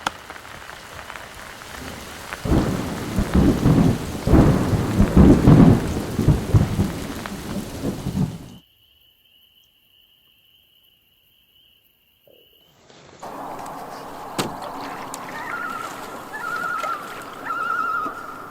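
Heavy rain falling with loud rolling thunder, which rumbles strongest for several seconds. About eight and a half seconds in, it cuts off suddenly to near silence. From about thirteen seconds a quieter steady background comes in, with a few sharp clicks and a wavering high tone.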